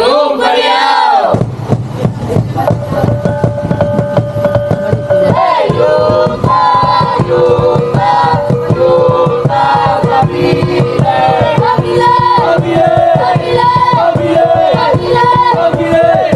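Background music: a song with sung vocals, where a steady beat and bass come in about a second in.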